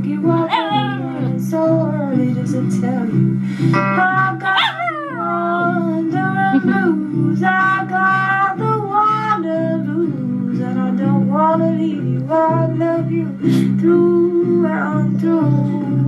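A papillon dog howling in wavering, gliding notes along with a recorded acoustic folk song, with guitar playing underneath.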